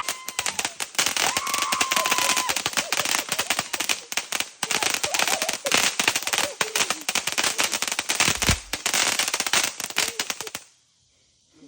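A string of firecrackers popping in rapid, dense succession for about ten seconds, then stopping suddenly.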